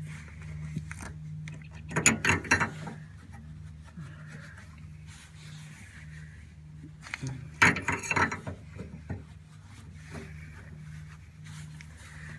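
A 1-inch wrench tightening the steering cable nut on an outboard motor: two short runs of metallic clicking and clanking, about two seconds in and again near the middle, over a steady low hum.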